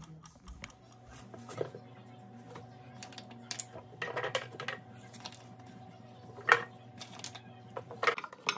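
Irregular light knocks and clatters of raw broccoli florets and baby carrots being dropped into a plastic blender jar and the jar being handled, with a sharper click about six and a half seconds in. A steady low hum runs under it from about a second in until near the end.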